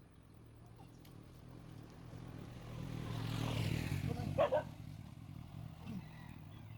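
A passing motor vehicle: its engine grows louder to a peak a little past halfway and then fades away. A brief higher sound comes just after the peak.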